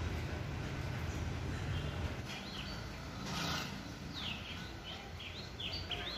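A small bird chirping: short high chirps starting about two seconds in, coming roughly twice a second near the end, over a steady low background rumble.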